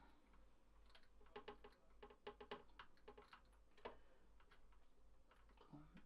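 Faint, scattered light clicks and taps of small tools and wires being handled while soldering a laptop charging-port lead, with a quick cluster between about one and four seconds in, over a steady low hum.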